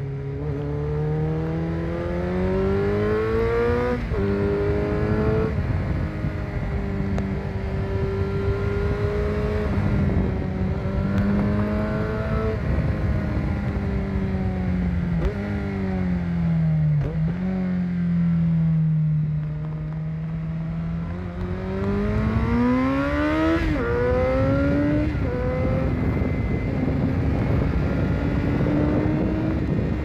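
Motorcycle engine running under way, its pitch climbing as it accelerates and dropping sharply at several gear changes, with low wind rumble throughout.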